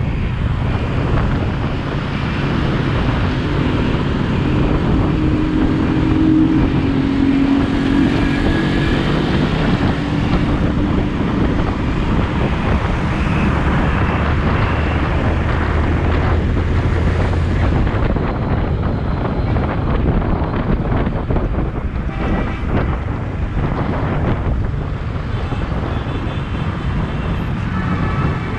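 Steady, loud vehicle noise with wind buffeting the microphone.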